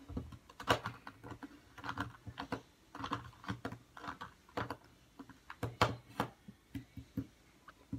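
Plastic Rubik's cube being handled and turned, giving irregular small clicks and clacks.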